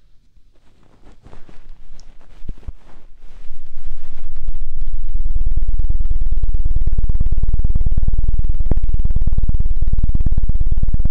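Hands rapidly patting and fanning against the ears of a binaural dummy-ear microphone in the ASMR 'helicopter' trigger. Scattered taps build up at first, then about four seconds in settle into a loud, fast, steady chopping pulse, like a helicopter rotor starting up.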